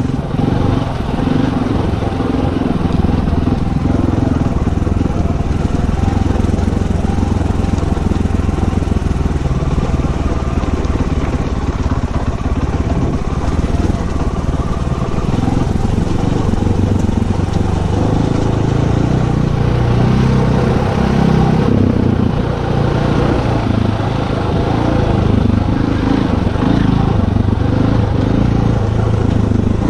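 Dirt bike engine heard from the rider's helmet, running steadily at low revs, its note rising and falling as the throttle is opened and closed on a rough trail.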